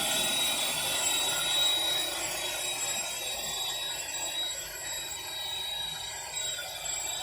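Vacuum cleaner running steadily: a rushing motor noise with a thin high whine, dropping a little in level about two seconds in.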